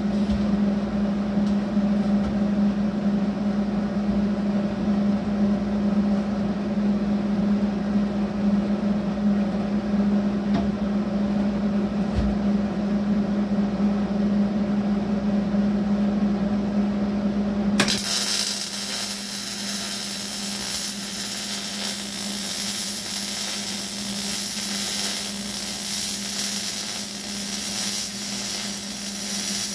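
A steady hum for most of the first half. A bit past the middle a MIG welding arc strikes and keeps running as an even, crackling hiss.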